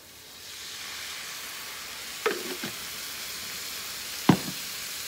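Spice paste and lemongrass sizzling in a hot frying pan as water is poured in. The hiss builds up over the first second and then holds steady. Two knocks come about two seconds in and about four seconds in, the second louder.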